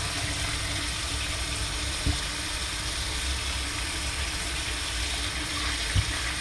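Kitchen tap running in a steady stream, splashing onto a gutted fish being rinsed by hand and into a stainless steel sink, with two short knocks, about two seconds in and near the end.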